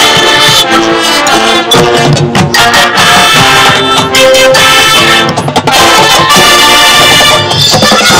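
High school marching band playing loud, brass-led music, with percussion strokes beneath the horns.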